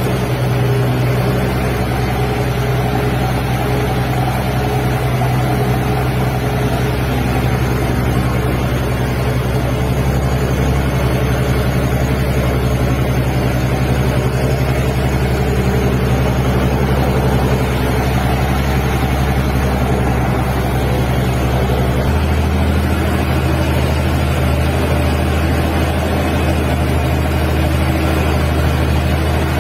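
Heavy diesel engine running steadily under load as a loaded cattle truck is dragged slowly through deep mud. About 22 seconds in, the engine note changes and its lowest rumble drops out.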